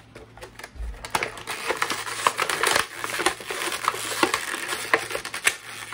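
Plastic toy packaging being handled, crinkling and crackling with many quick irregular clicks as the figure's pieces are taken out. It starts about a second in.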